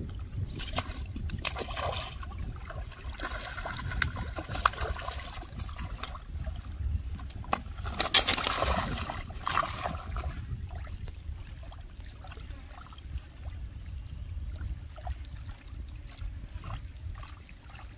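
Rustling, scraping and crunching of an angler shifting on a stony bank and handling bait over a steady wind rumble on the microphone, busiest in the first ten seconds and loudest about eight seconds in.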